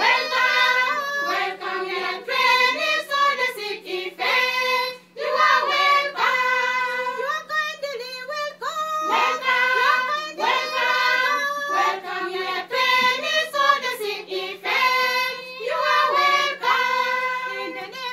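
A group of young women singing a song together, voices only, in phrases of a second or two.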